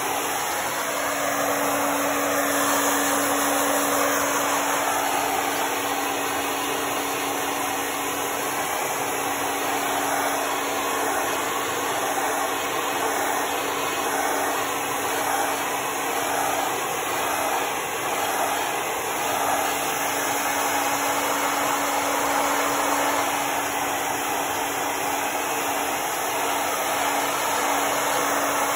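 Hair dryer blowing steadily over a dog's coat: a constant rush of air with a steady hum beneath it.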